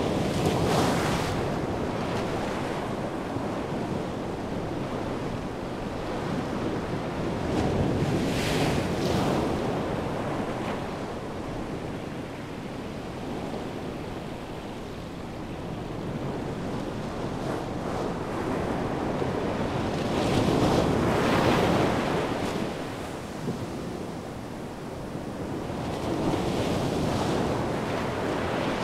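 Atlantic surf breaking along the coast: a continuous wash that swells into four louder surges and ebbs between them.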